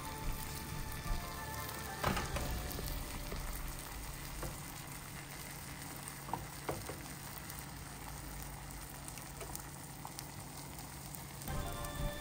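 Beaten eggs frying over sautéed vegetables in a pan, a steady sizzle with scattered crackles. Sharper crackles come about two seconds in and again around six to seven seconds.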